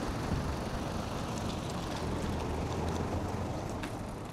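Steady wind rumble and rolling noise on a bike-mounted GoPro's microphone while riding, easing off a little near the end.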